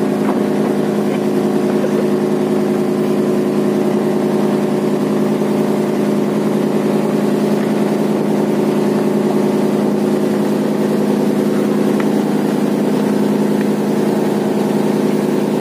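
Fishing trawler's inboard engine running steadily under way, a constant drone of several even, level tones.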